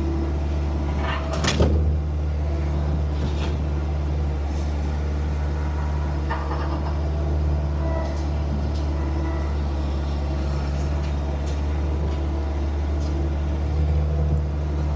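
An engine running steadily at a constant speed, with several sharp knocks and clanks over it; the loudest comes about one and a half seconds in.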